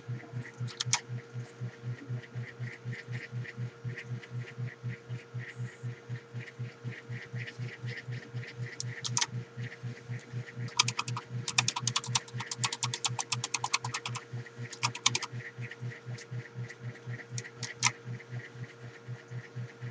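Keys of a Wellrui V802 keyboard being typed on: scattered clicks with a fast run of keystrokes in the middle. A steady hum pulsing about three times a second runs underneath.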